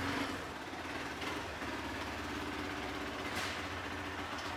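A motorcycle engine idling steadily.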